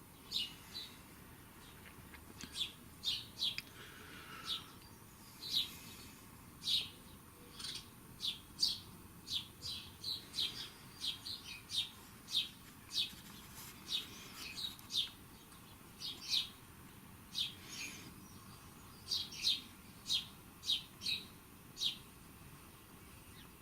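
Small bird chirping over and over: short, high chirps, one or two a second, with brief pauses between runs.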